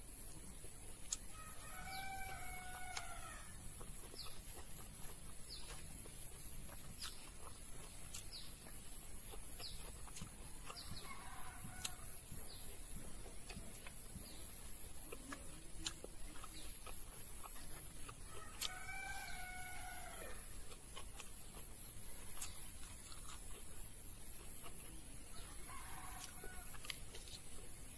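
A rooster crowing twice, once a couple of seconds in and again about two-thirds of the way through, each crow about a second long, with two fainter crows between and near the end. Faint scattered clicks and a steady high hum sit underneath.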